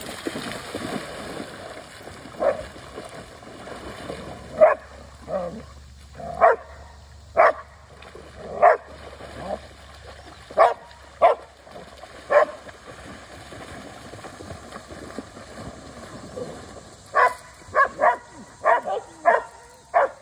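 A dog barking: single barks spaced a second or two apart, then a quicker run of barks near the end. Water splashes in the first couple of seconds as dogs run through shallow water.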